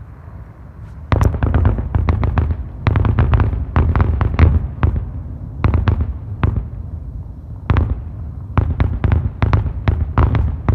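Fireworks going off in a rapid barrage of sharp bangs that comes in clusters, starting about a second in, with a low rumble between the reports.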